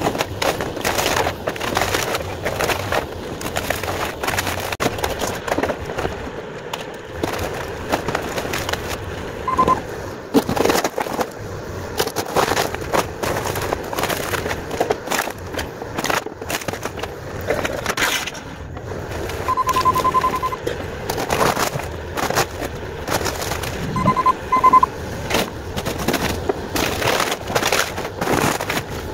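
Bobcat compact excavator breaking up a wooden garage: repeated cracks, snaps and crashes of splintering lumber and debris over the machine's engine running. Brief bursts of rapid electronic beeping come a few times.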